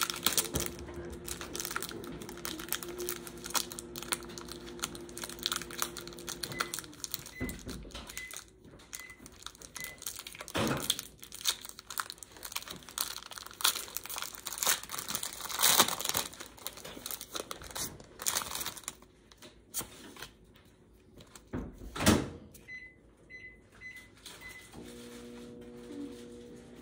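Foil booster pack wrapper crinkling and tearing as a Pokémon card pack is opened, with a few louder rips. Behind it a steady hum stops about a quarter of the way in and comes back near the end, and two runs of short high beeps sound, one at the hum's stop and one shortly before it returns.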